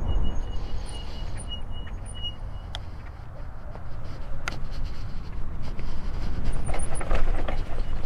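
Wind buffeting the microphone while riding a Jackrabbit micro e-bike, with a few sharp knocks and then tyres rattling and crunching over dry grass and rough ground near the end. A faint, high, repeating chirp sits above it at the start.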